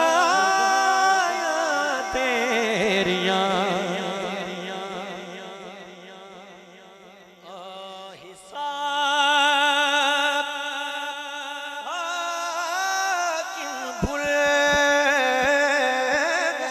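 A male voice singing a Punjabi naat, drawing out long, wavering notes. The first phrase fades away and a new one begins about halfway through.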